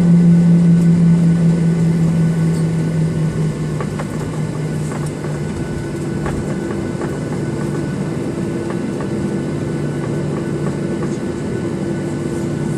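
Airliner cabin noise while taxiing after landing: the engines and air system make a steady noise with a low hum. The hum fades a few seconds in and gives way to a steady, somewhat higher tone, with a few light clicks in the cabin.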